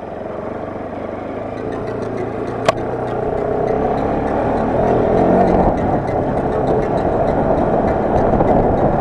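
Motorcycle engine running while riding, getting gradually louder, with one sharp click about two and a half seconds in.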